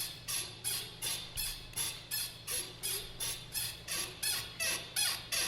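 Rhythmic creaking squeak, repeating evenly about three times a second.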